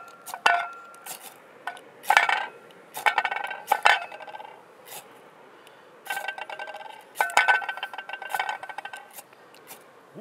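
Ferrocerium fire steel scraped hard and repeatedly down into tinder in the metal fire base of a Kelly Kettle-style camp kettle, to throw sparks and light it without matches. The scrapes come in several bursts, each with a ringing metallic tone.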